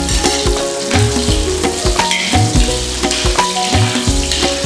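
Chopped garlic and red onion sizzling in hot oil in a wok and being stirred with a metal spatula, under background music with a bass line and a steady beat.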